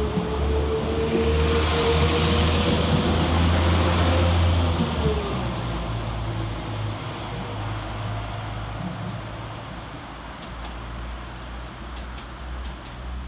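Two coupled Class 195 diesel multiple units pulling away under power, their MTU diesel engines giving a deep rumble with a whine that climbs slightly. About five seconds in, the whine drops in pitch and the engine note eases, and the sound fades as the train draws away.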